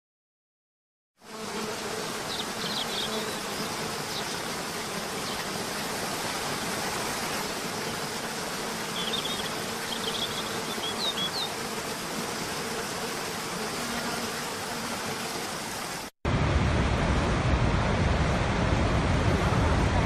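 Waterfall rushing, a steady hiss of falling water, with a few short bird chirps on top. It starts after a second of silence. Near the end it cuts to a louder, deeper rush of a much larger falls.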